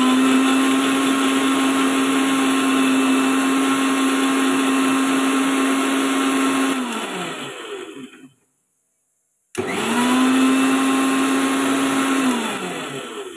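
Electric mixer grinder with a small stainless steel jar grinding green chutney: a steady motor whine that runs for about seven seconds, then falls in pitch as it winds down and stops. After a pause of about a second it starts again for a shorter run and winds down once more.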